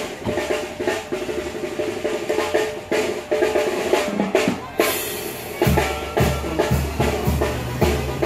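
Loud music with a drum beat. Near five seconds in there is a crash, and then a heavy bass line comes in.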